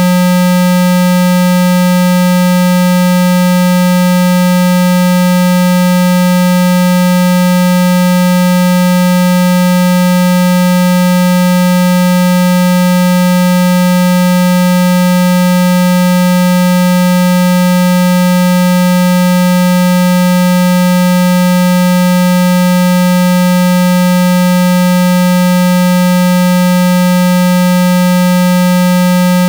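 Loud, steady, unchanging 195 Hz water-eject tone, a low synthetic hum made to vibrate trapped water out of a phone speaker, with fainter higher overtones above it.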